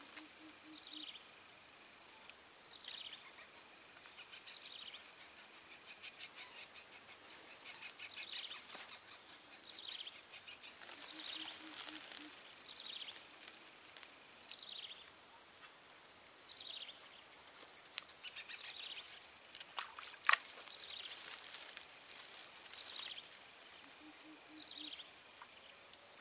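Steady high-pitched insect chorus, with short falling chirps repeating every second or two over it. A single sharp click sounds about twenty seconds in.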